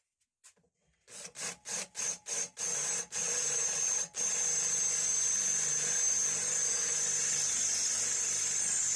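Power drill boring a hole through the metal side of a bench sander's body. It starts with several short trigger bursts, then runs steadily with a constant high whine, easing off briefly about four seconds in.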